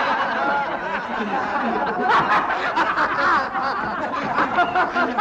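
A roomful of men laughing together, many overlapping laughs and chuckles without a break.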